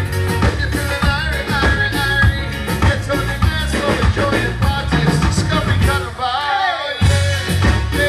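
Live band of drums, guitar and keyboard playing dance music with a singer. The beat and bass drop out for about a second, six seconds in, leaving the singing, then the full band comes back in.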